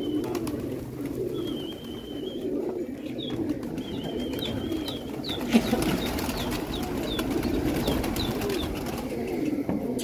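A large flock of domestic pigeons cooing continuously. About halfway through, many of them take off at once with a flurry of flapping wings. Thin high whistles and chirps sound over the cooing.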